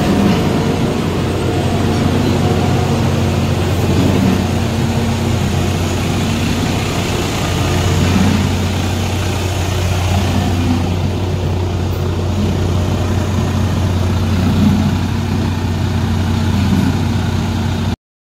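Diesel engine of a Mercedes-Benz concrete mixer truck running steadily at idle, a deep even hum. It cuts off suddenly just before the end.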